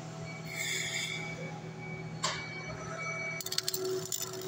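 Steady electrical hum with a sharp click about two seconds in, then an electric welding arc strikes and crackles irregularly on a steel shaft for the last second or so.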